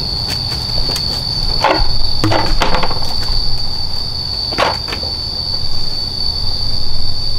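Insects trilling on one steady high note, with a few short knocks and rustles about two and five seconds in.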